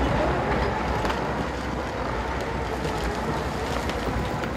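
Steady rushing, rumbling noise like wind on the microphone, with a faint steady tone held underneath.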